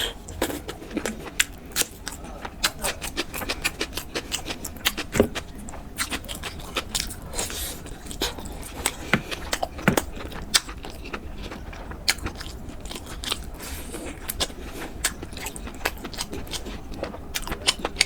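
Close-miked eating and food-handling sounds: many irregular sharp clicks and crisp crunches, several a second, over a low steady hum.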